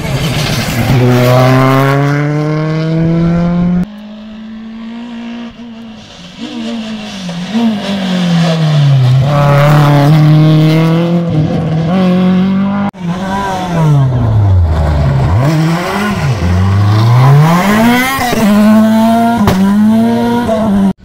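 Rally cars passing at speed, engines revving hard: the pitch climbs, breaks at each gear change and climbs again, and dips when the driver lifts off and brakes for a bend before accelerating away. Three separate passes follow one another with abrupt changes, one of them by a Renault Clio.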